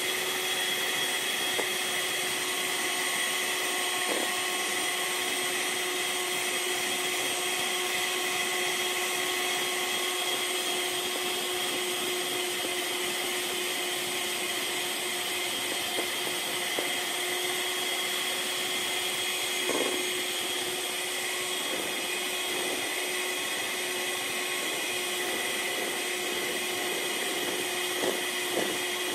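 Electric hand mixer running steadily, its beaters whipping a bowl of whipping-powder cream, with a few light knocks near the end.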